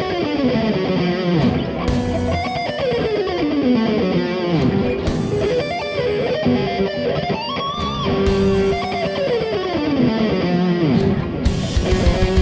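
Ibanez RG1570 electric guitar through a Marshall MA50H amp playing a fast lead at a slowed practice tempo. Quick descending runs come about three times, with held notes with vibrato between them, and evenly picked fast notes near the end.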